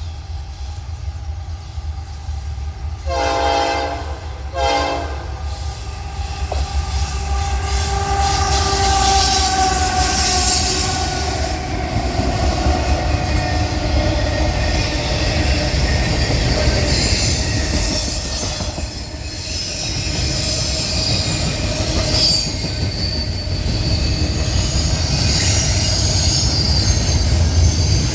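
Freight locomotive air horn giving two blasts about three seconds in, a longer one then a short one, as a friendly greeting honk. After that, a short intermodal freight train passes close by with a steady rumble and its wheels squealing on the rails.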